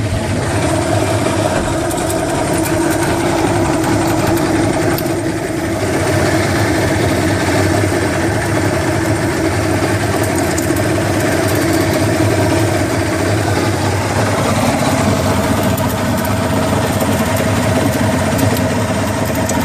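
Johnson 150 hp outboard motor running with a rattling noise, which is present from about two seconds in. The rattle comes and goes, gets louder at higher rpm, and its cause is unknown to the owner.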